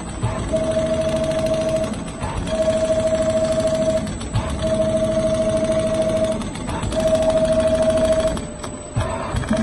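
Automatic rotating-head sewing machine stitching leather: a steady mechanical whine with rapid needle clatter, running in stretches of about a second and a half with a short break between each, four times. The breaks come as the head stops to turn at the corners of the diamond stitch pattern.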